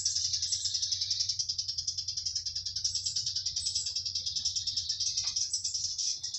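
A steady chorus of cicadas buzzing, a high rapid pulsing, over a low hum that cuts out near the end. A single short falling chirp about five seconds in.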